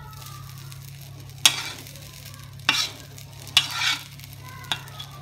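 Metal spatula tossing fried rice in a steel wok, striking and scraping the pan with about four sharp clanks roughly a second apart while the rice sizzles. A steady low hum runs underneath.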